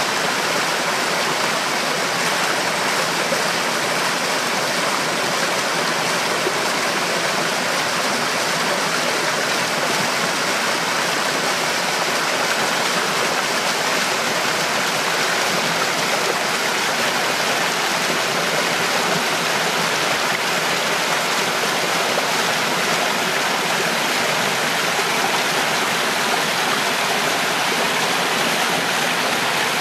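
Small woodland stream rushing steadily as it spills over a low dam of fallen branches and debris in a small waterfall.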